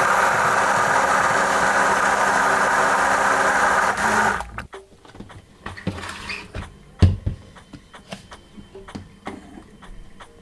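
Electric blender motor running steadily, blending the wet jerk seasoning, then cutting off suddenly about four seconds in. Afterwards come light clicks and knocks, with a heavier thump about seven seconds in.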